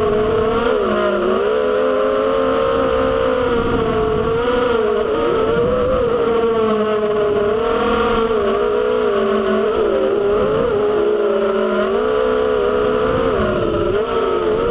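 FPV racing quadcopter's electric motors and propellers whining, heard through its onboard camera, the pitch rising and falling constantly with the throttle.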